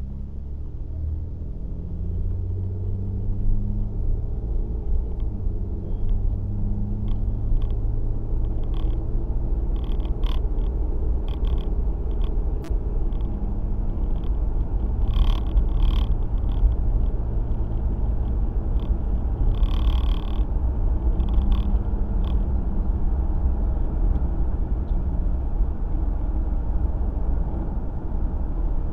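Steady low rumble of a car driving, engine hum and road noise, with scattered clicks and rattles, the most marked in the middle.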